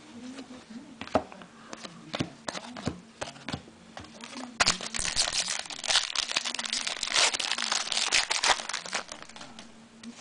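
A few light clicks and taps, then about four seconds of dense crinkling from about halfway in: a foil trading-card pack wrapper being handled and torn open.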